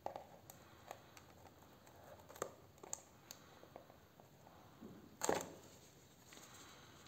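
Serrated folding knife cutting and scraping through the clear tape seal on a cardboard box, with small clicks and rustles and one louder scrape about five seconds in.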